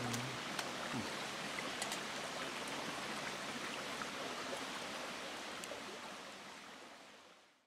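Creek water running steadily, with a few faint clicks, fading out near the end.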